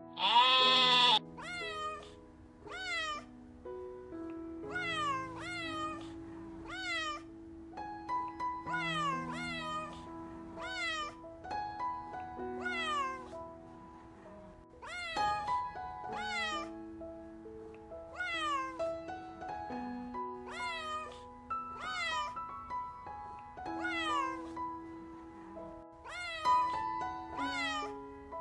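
A loud bleat ends about a second in. Then a cat meows over and over, short meows that fall in pitch and often come in pairs, over background music with long held notes.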